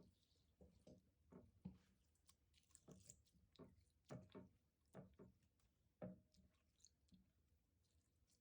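Faint, irregular sticky squelches and pops of slime being squished and pulled, about one or two a second.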